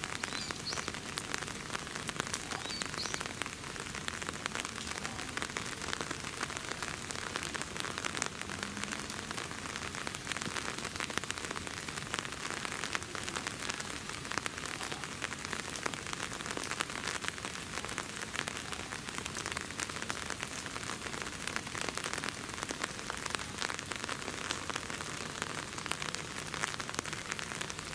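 Steady rain falling: a hiss with a dense patter of close drop ticks.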